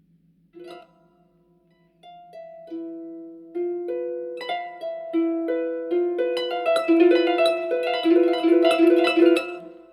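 Concert harp plucked: one isolated note, a pause, then repeated plucked notes on a few pitches that ring on and build in density and loudness into rapid repeated plucking, then stop near the end.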